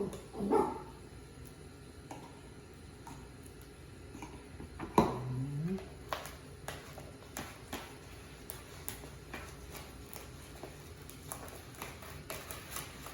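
Spoon clicking and scraping against a bowl as mayonnaise is stirred into chicken salad, in many irregular clicks. About five seconds in there is a sharp knock followed by a short, low vocal sound.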